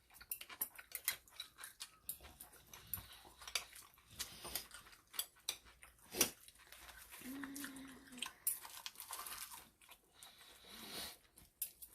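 Spoons and chopsticks clicking against bowls, with chewing, during a meal; a short hummed note sounds about seven seconds in.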